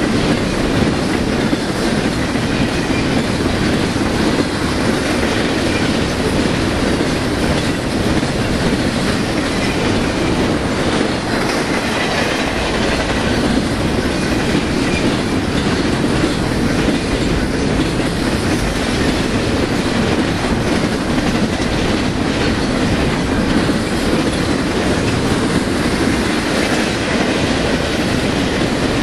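Freight cars of an intermodal train loaded with highway trailers rolling past, steel wheels on rail making a steady, unbroken noise with faint clicks.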